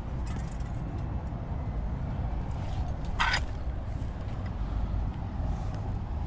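Steady rumble of street traffic, with one short hiss about three seconds in.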